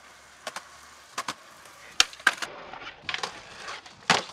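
Skateboard rolling on concrete, with several sharp clacks of the board, the loudest about two seconds in. Near the end comes a loud scrape as the board grinds onto a concrete ledge.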